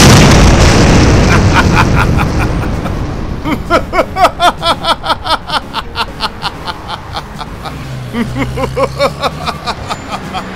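A cartoon explosion: a sudden loud blast that dies away over about three seconds. Then a voice in a rapid, even run of short repeated cries, with another, lower-pitched run near the end.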